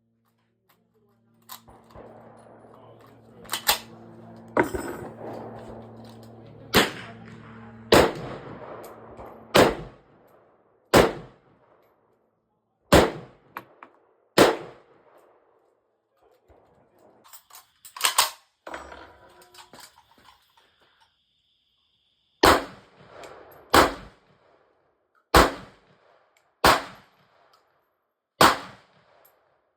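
Gunshots fired one at a time at a slow, steady pace, about fifteen in all, usually a second or two apart, with a pause of a few seconds near the middle. A high ringing tone hangs on for a few seconds after a shot near the middle.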